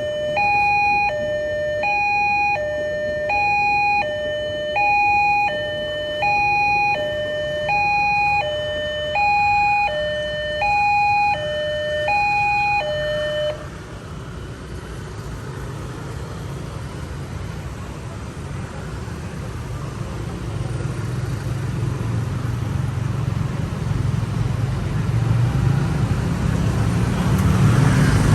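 Railway level-crossing warning alarm sounding a two-tone hi-lo pattern, about one cycle a second, which cuts off about halfway through. Then a low rumble of vehicle noise builds steadily.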